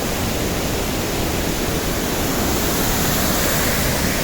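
Waterfall close by: a loud, steady rush of falling water and spray.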